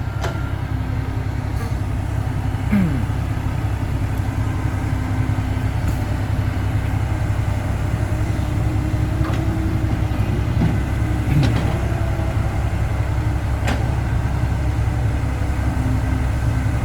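Steady low rumble of a motor vehicle's engine and road noise running on, with a few faint clicks and brief whines over it.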